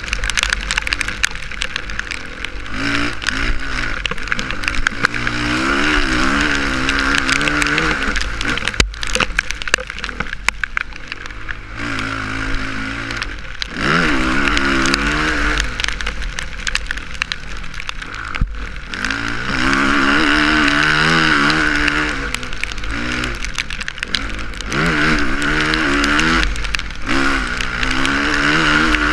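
Suzuki RM-Z450 motocross bike's single-cylinder four-stroke engine revving up and down as it is ridden, its pitch climbing and then dropping sharply several times as the throttle is opened and shut, over a steady rushing noise from an onboard camera.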